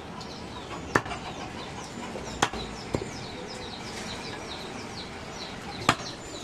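Butcher's cleaver chopping goat meat on a wooden stump chopping block: four sharp chops, spaced unevenly, with birds chirping in the background.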